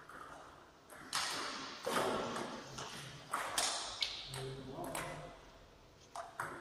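Table tennis rally: a celluloid-type ball clicking sharply off paddles and the table, about ten hits at an uneven pace over some five seconds, echoing in a large sports hall.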